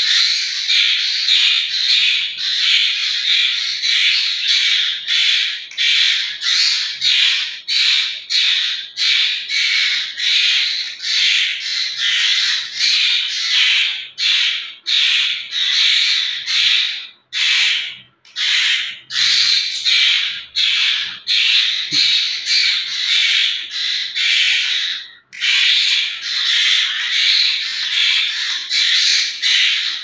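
Asian koel chicks giving harsh, rapid squawking begging calls, about two or three a second, as they are hand-fed. The calling breaks off briefly about halfway through and once more later.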